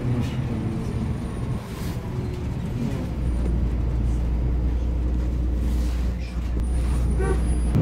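Interior of a Solaris Urbino 18 articulated city bus under way: steady engine rumble and road noise. The low drone grows heavier and a little louder about three seconds in.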